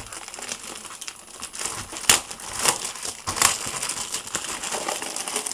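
Plastic shrink-wrap on a trading-card starter pack crinkling and crackling as a hand works at it, with several sharp crackles, the loudest about two seconds in.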